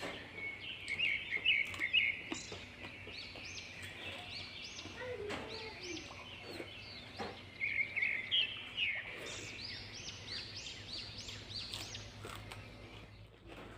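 Birds singing: runs of quick chirps that rise and fall, repeated in series, with louder trilling about a second in and again about eight seconds in, and a few scattered clicks.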